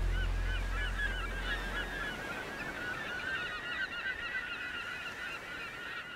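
A flock of birds calling, with many short arched calls overlapping in a continuous chorus. Low music fades out over the first two seconds.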